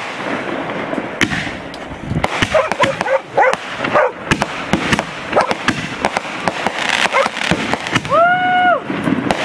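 Consumer firework aerial shells bursting in quick succession, a dense run of sharp bangs and crackling. Near the end a long pitched call rises, holds and falls over the bangs.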